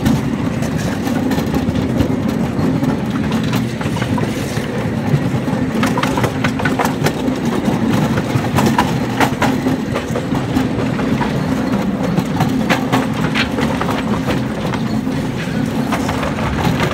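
Quarter-scale ride-on train running along its track: a steady low engine drone with the cars' wheels clicking over rail joints, the clicks coming thicker from about six seconds in.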